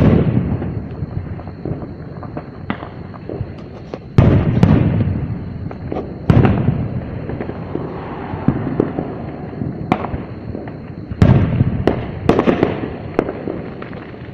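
Fireworks show's aerial shells bursting: about six sharp booms, each followed by a rumble and crackle that dies away. The loudest come about 4 s in and about 11 s and 12 s in.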